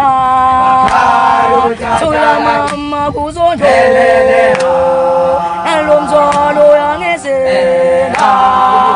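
A group of voices singing a gwijo, a Xhosa call-and-chant song, unaccompanied, with long held notes.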